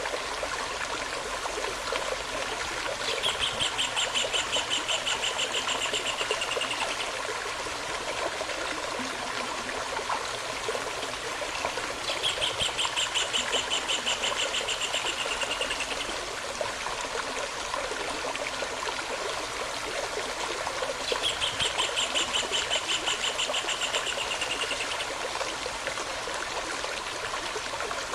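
Running stream with a steady rushing trickle, over which a songbird sings a rapid, slightly falling trill three times, each about four seconds long and spaced evenly apart.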